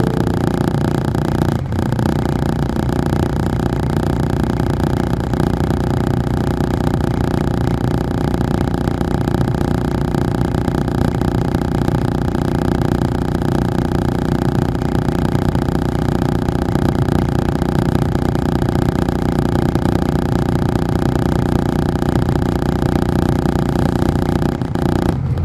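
Detroit Diesel Series 60 engine of a 2002 MCI D4500 coach running at steady revs, heard from inside the bus: a loud, even drone that holds the same pitch throughout.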